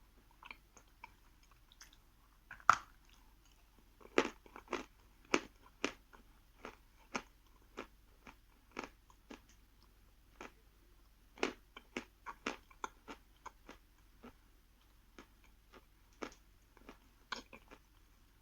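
Chewing and biting a piece of soft, dry Khrapovsky chalk: irregular crisp crunches, the loudest about three seconds in, with quicker runs of crunches around four to six seconds and eleven to thirteen seconds in.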